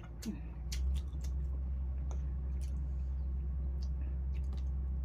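Eating at a table: scattered light clicks of a fork on a plate and chewing. A steady low hum sets in about a second in and runs under them, louder than the eating.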